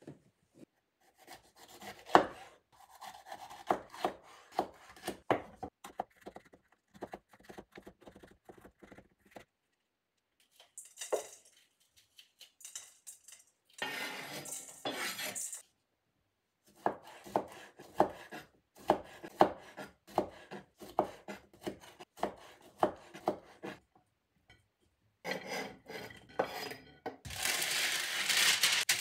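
A knife cutting cherry tomatoes and green pepper on a board, heard as two runs of sharp knocks a few times a second. Near the end comes loud crackling of baking parchment being handled over a baking tray.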